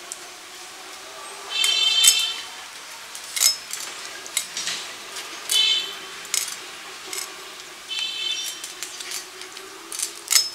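Climbing perch being scraped and cleaned by hand: a few short rasping scrapes with a squeaky ring, and sharp clicks between them.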